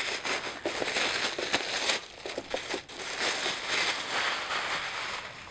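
Thin white packing wrap crinkling and rustling as a boxed item is handled and unwrapped, a dense run of small crackles that pauses briefly about two seconds in.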